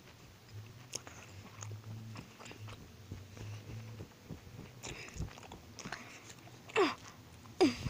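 Plush toys being handled close to the microphone: soft rustles and small clicks over a low hum, then near the end two short, loud sounds that each drop sharply in pitch.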